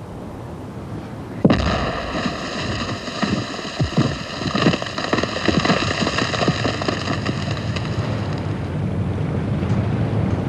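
A large explosive salute charge detonating with one sudden blast about a second and a half in, followed by several seconds of dense crackling and popping as burning fragments come down, dying away about eight seconds in.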